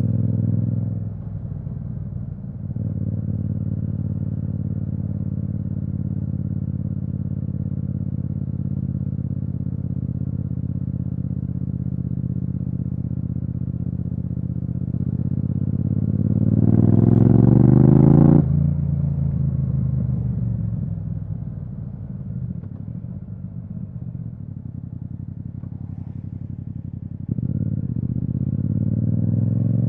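Yamaha MT-07's 689 cc parallel-twin engine through an Akrapovič aftermarket exhaust, heard from the rider's seat. It runs at steady revs, then partway through the revs climb for a few seconds and drop sharply as the throttle closes. It then runs lower and steadier until the throttle opens again near the end.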